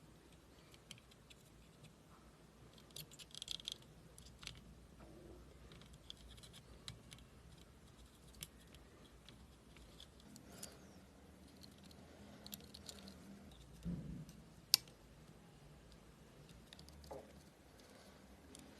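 Faint, scattered small clicks and scrapes of hand tools working on surface-mount parts during soldering, with a short cluster a few seconds in and one sharp click about two thirds of the way through. A faint low hum runs underneath.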